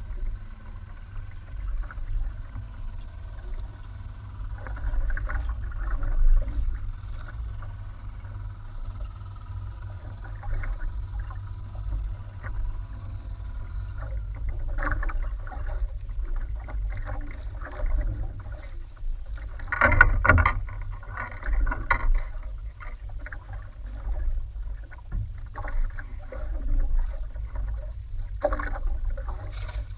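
Water sloshing and splashing against the hull of a small outrigger boat rocking on open sea, in irregular bursts with the loudest about two-thirds of the way through, over a steady low rumble of wind on the microphone.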